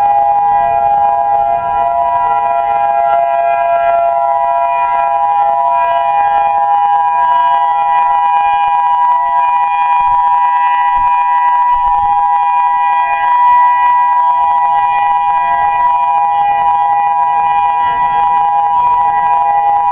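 EOWS-612 electronic tornado siren sounding its test signal: a loud, steady chord of several tones that holds its pitch without rising or falling.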